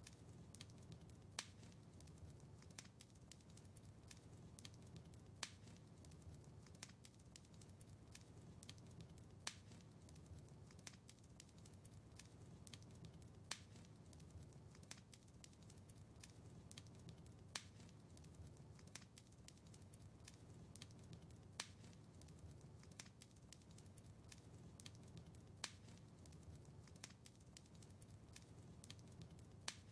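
Fireplace wood fire crackling faintly: frequent small sharp pops over a low steady rumble, with a louder pop about every four seconds.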